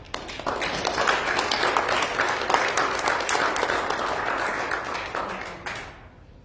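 A congregation applauding, a dense patter of many hands clapping that starts just after the song ends and dies away after about six seconds.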